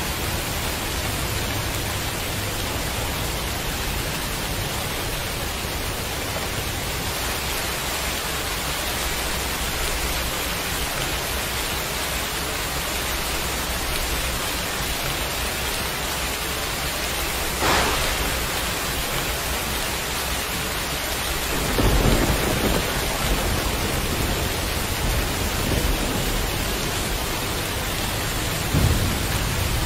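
Steady heavy rain. A sharp crack of thunder about two-thirds of the way through, then low rolling thunder rumbling through the last third, with another louder rumble near the end.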